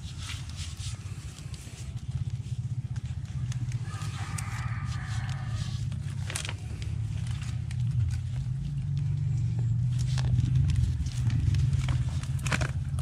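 Hands tying a string inside a bamboo crab trap: scattered clicks and rustles of string against the bamboo slats, over a steady low rumble that grows louder in the second half. A brief faint pitched call comes about four seconds in.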